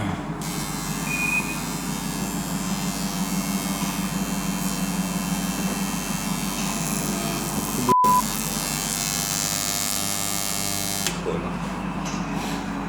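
A steady electronic buzzing hum made of many fixed tones, with a sudden silent gap and a short beep about 8 seconds in. The hum stops abruptly shortly before the end.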